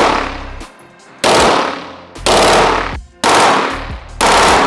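Full-auto 9mm machine pistol firing short bursts, a burst about once a second, five in all, each ringing out with echo off the range walls.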